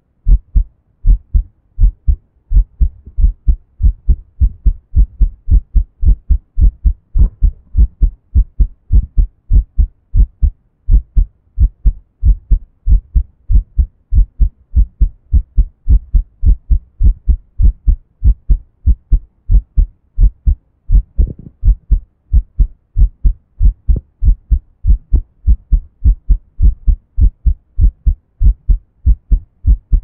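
A person's heartbeat, recorded close up: a steady, even rhythm of low, dull thumps.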